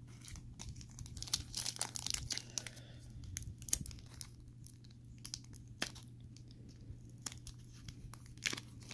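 Foil wrapper of a Topps trading-card pack crinkling and crackling in the fingers as it is picked at to tear it open. The wrapper is stubborn and hard to open.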